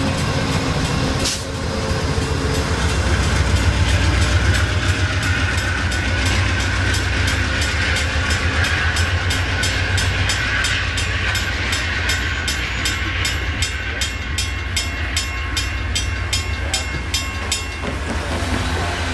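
An Amtrak passenger train's last cars pass over a grade crossing and run off with a heavy low rumble, while the crossing's warning bell rings in steady, evenly spaced strokes.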